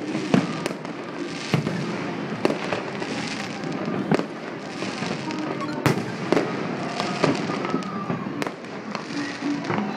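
Fireworks and firecrackers going off, with sharp bangs at irregular intervals over a continuous haze of more pops and crackle. The loudest bang comes about six seconds in.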